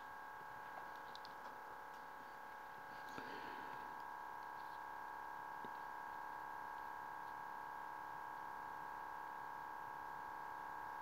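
Faint steady electrical whine with several tones held at once, with a few soft clicks and a brief rustle about three seconds in.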